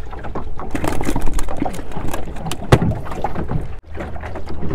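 Sea water slapping and splashing against a small wooden fishing boat's hull, with scattered knocks and clatter on the boat; the loudest knock comes a little past halfway.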